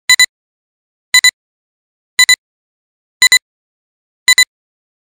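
Countdown sound effect: a pair of short, high electronic beeps once a second, five times, with silence in between.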